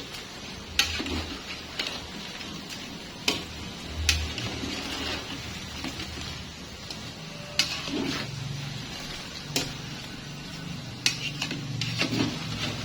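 Metal utensils clinking and knocking against a pan or dishes about eight times, irregularly, over a faint steady hiss of frying.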